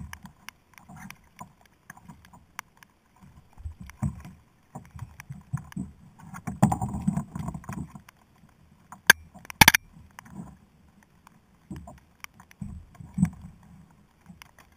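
Handling noise of a fishing rod, reel and gear on a plastic sit-on-top kayak: scattered light clicks, dull thumps and rustling, busiest a few seconds in, with one loud sharp knock a little before the ten-second mark.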